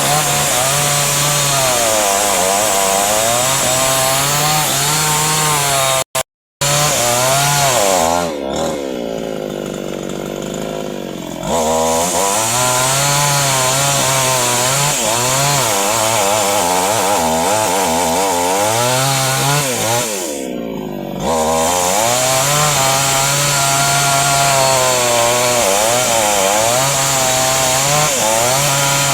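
Two-stroke chainsaw running at full throttle, cutting into dense hardwood, its engine pitch wavering under the load of the cut. Twice the revs drop briefly, about a third of the way in and again about two-thirds in, then it goes back to cutting. The sound cuts out for a moment about six seconds in.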